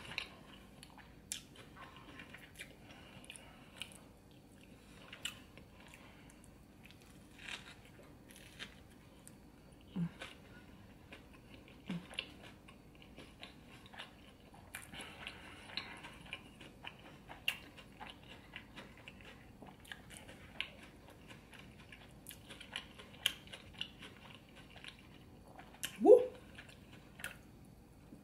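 Close-up chewing and biting of a burger: many wet mouth clicks and smacks at an irregular pace. A few short hums break in, the loudest, a rising "mm", near the end.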